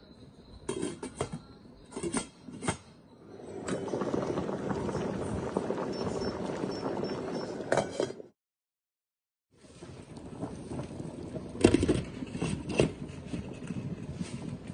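Soup in a stainless steel pot on an induction hob: a few sharp clinks, then the water bubbling at a steady boil. The sound cuts out for about a second, then the boil goes on with a few more clinks, as a glass lid sits on the pot.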